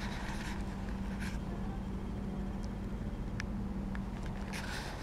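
A steady low hum that stops shortly before the end, with a few soft rustles and faint clicks over it.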